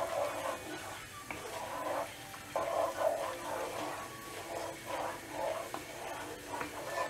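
Chopped cashews frying in hot ghee in a non-stick pan while a wooden spatula stirs them: a sizzle mixed with scraping strokes, swelling and fading with each stir.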